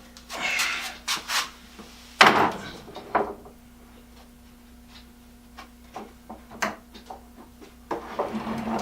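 Wooden tool chest being lowered onto its casters: wood rubbing and scraping, then a heavy thud about two seconds in, followed by a lighter knock and a few scattered clicks.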